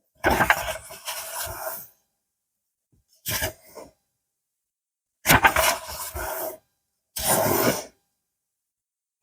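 Paper pages of a book being turned by hand: four separate papery rustles, each under two seconds, with silence between them.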